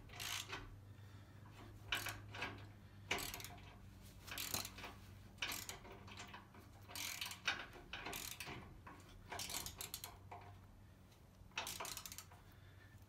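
Socket ratchet wrench clicking in repeated short bursts, about one stroke a second, as a nut is tightened down on a bolt of a steel swing-away trailer tongue.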